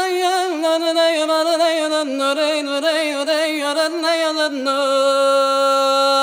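Background music: a single voice singing a wavering, heavily ornamented melody with no percussion, settling into a long held note about four and a half seconds in.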